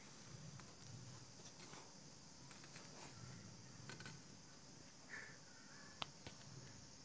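Near silence over a steady faint hiss. A hand handling young kittens on cloth makes faint rustles and ticks, with a short faint high squeak about five seconds in and one sharp click about a second later.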